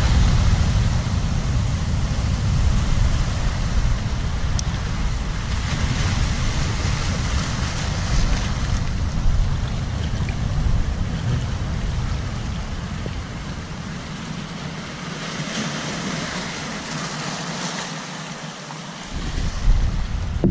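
Wind buffeting the microphone over waves washing across a rocky reef shore. The low wind rumble dies away for a few seconds about two-thirds of the way through, then gusts back near the end.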